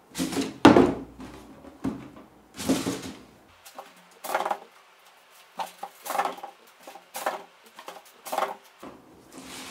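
A large cardboard cereal box being handled and turned by hand on a tabletop: a string of irregular knocks, scrapes and rubs of cardboard, the loudest a little under a second in.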